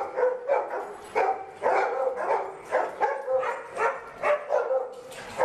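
Dog barking over and over, about two to three barks a second.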